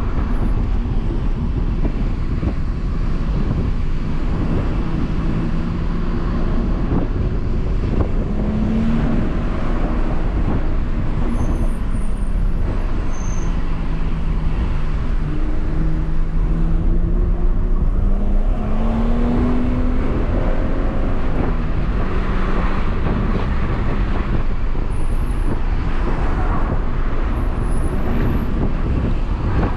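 BMW M140i's turbocharged 3.0-litre inline-six, heard from inside the cabin while driving, its pitch slowly rising and falling with the throttle over steady tyre and road noise.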